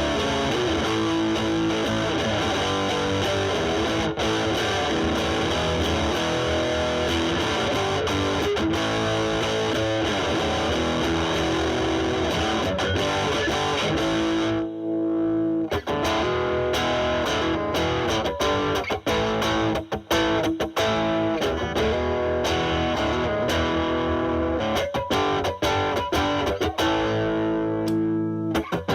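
Electric guitar, a Stratocaster played through a Boss DS-2 Turbo Distortion pedal set to 12 o'clock into a Marshall Valvestate amp's drive channel, giving a thick, heavily distorted tone. Near the end the playing turns choppier and the sound cleans up.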